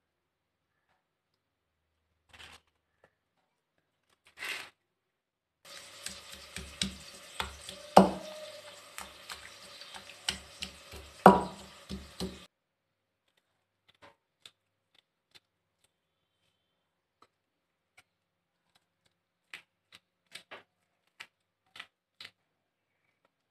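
Tomato, garlic and salt being ground with a pestle in a terracotta mortar bowl: about seven seconds of scraping and grinding over a steady hiss and hum, with two hard knocks, the loudest sounds. Afterwards a string of light, sparse clicks as green chilli is cut with a knife over the bowl.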